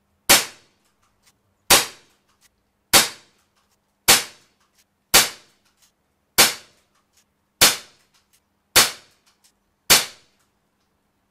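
A budget 415 CO2 BB pistol firing nine single shots at a steady pace, about one every second and a bit. Each shot is a sharp crack of gas with a short tail, and there are faint ticks between the shots.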